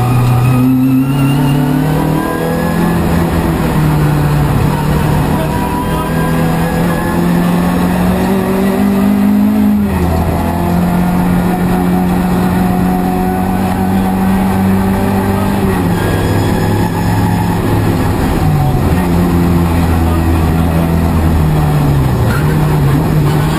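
Fiat 131 Group 2 rally car's engine under hard acceleration at stage pace. The note climbs steadily and drops at gear changes about ten and sixteen seconds in, dips again near the end and then picks back up.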